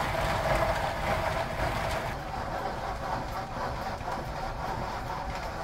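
Small electric motor running steadily at an even pitch, typical of a kitchen mixer whipping hilbet.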